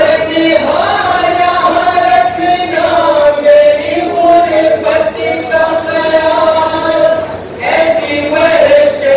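A group of men chanting a nauha, a Shia mourning lament, together in long held notes.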